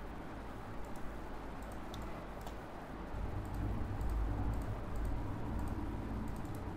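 Scattered light computer keyboard and mouse clicks at an irregular pace, over a steady low hum that grows louder about halfway through.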